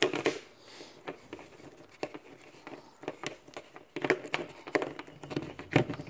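Handling noise of a bundled power cable being unwound: light clicks, rustling and crinkling of the cable and its wrapper tag. The handling gets busier and louder about four seconds in.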